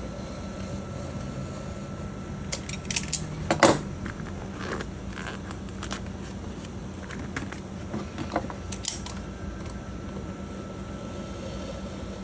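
Hands opening a flash drive's retail package: scattered clicks, taps and handling noises, the loudest about three and a half seconds in and another few around eight to nine seconds, over a steady low hum.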